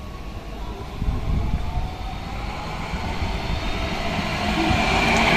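A Cologne light-rail tram approaching along the track, its running rumble on the rails growing steadily louder as it nears.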